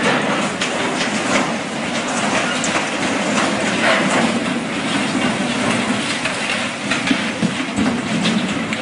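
Loud, steady rush of floodwater with repeated knocks and scraping as the current drives a steel barge against a bridge.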